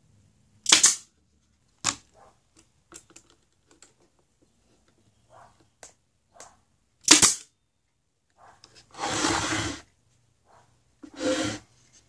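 Pneumatic nailer driving nails into pine, with sharp shots about a second in, near two seconds and about seven seconds in. Light knocks of the wood being handled come between the shots, and there is a longer noise about nine seconds in.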